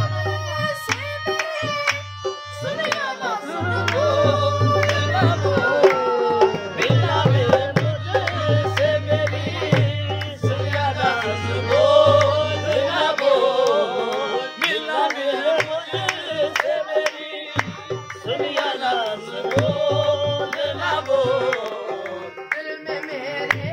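Live qawwali: a male lead singer with two harmoniums, hand claps and a hand drum keeping the rhythm. The singing lines bend and glide in pitch over the sustained harmonium chords.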